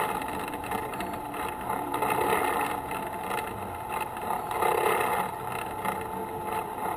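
Engine of a slow-moving vehicle running steadily at low speed.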